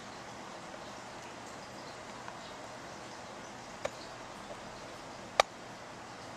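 Steady low hiss of room and recording noise, broken by two short sharp clicks: a soft one a little before four seconds in and a much louder one about a second and a half later.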